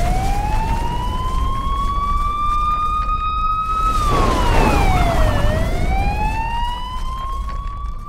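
Siren wailing: the pitch rises slowly for about four seconds, drops sharply, then climbs again, over a steady low rumble.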